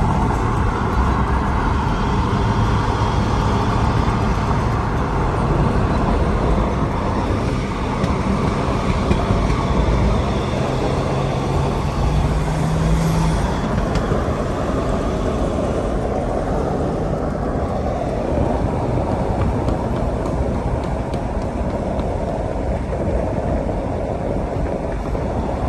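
BMW F30 335i being driven: steady engine and road noise, with the engine note stepping up and down as the revs change.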